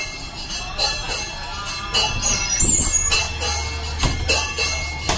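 Background music with a steady beat and jingling bell-like percussion.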